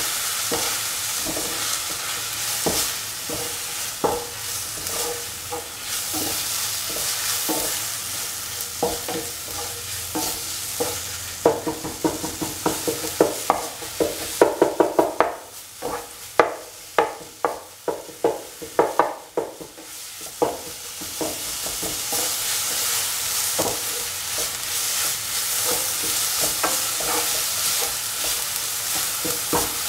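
Onion, tomato and spice masala sizzling in a hot pan while a spatula stirs and scrapes through it. In the middle stretch the sizzle drops and a quick run of sharp knocks of the spatula against the pan, about two or three a second, takes over, before the steady sizzle and stirring return.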